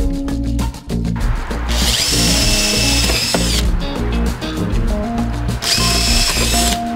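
Cordless drill boring into a plywood panel in two runs, the first about two seconds long and the second about a second, its motor whine rising as it spins up and then holding steady.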